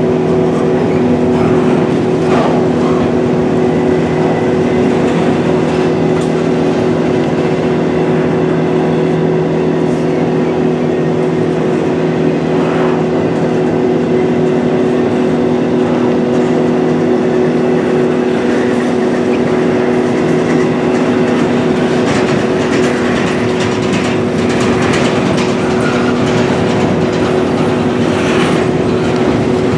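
Double-stack intermodal container cars rolling past on the rails: a steady, even rumble of wheels with a steady hum under it.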